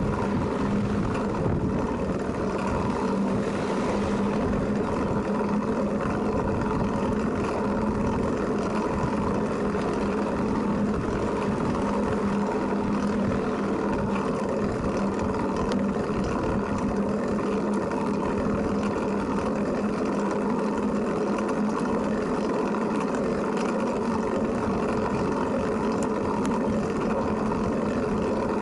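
Steady rolling noise while riding a Flevotrike recumbent trike: a constant low rumble with an even hum, unchanging throughout.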